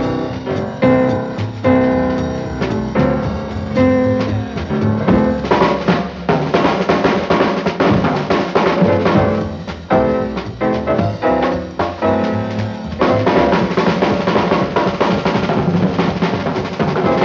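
Jazz combo recording with the drum kit to the fore: busy snare and bass-drum hits, growing denser about a third of the way in, over pitched chords.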